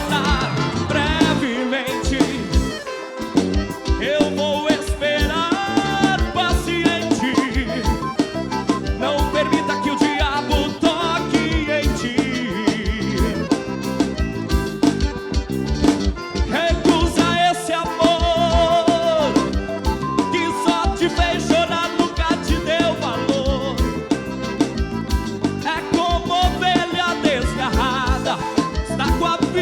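Forró band playing an instrumental passage: melody lines on horns and accordion over bass, drums and percussion, with a steady danceable beat.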